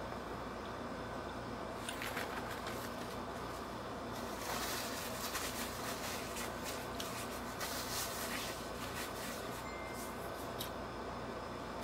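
Paper napkin rustling and crumpling in the hands for about four seconds, starting about four seconds in, over a steady low hum.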